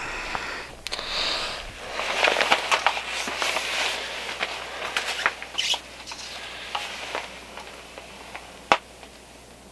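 Rustling and crackling handling noise with many scattered clicks, busiest in the middle, and one sharp click near the end.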